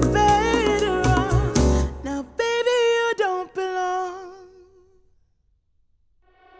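A pop song played through Sennheiser HD800 S headphones and picked up by microphones: full band with a singing voice. About two seconds in the band drops away, and a closing sung phrase ends on a held note with vibrato that fades to silence. The next track fades in near the end.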